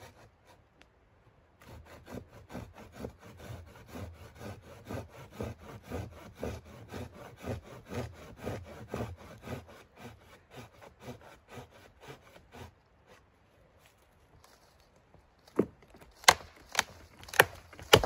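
Folding hand saw cutting through a dry dead branch in steady back-and-forth strokes. After a pause, the wood snaps with about five sharp cracks near the end as it breaks apart underfoot.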